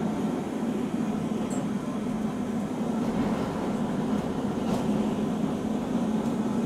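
Steady rumble and low hum of a moving vehicle, heard from inside its cabin.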